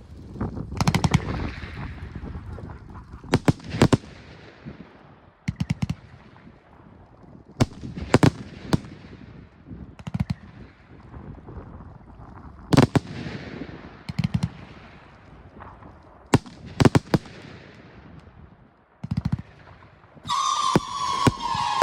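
Large aerial fireworks display: shells bursting in clusters of sharp, loud bangs every few seconds, with a low rumbling echo after each. About 20 seconds in, a steady high tone starts and keeps going.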